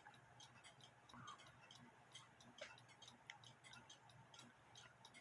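Faint, rapid ticking of a mechanical clock over near silence.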